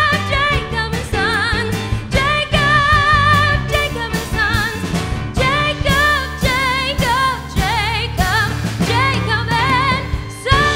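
A woman singing a musical-theatre song live with a strong vibrato, backed by a band with drums and bass.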